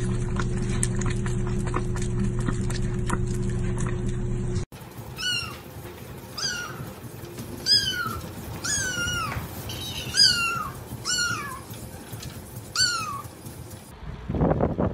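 A kitten meowing repeatedly: about eight short, high meows, each falling in pitch, roughly a second apart. They come after a steady low drone that cuts off suddenly about five seconds in.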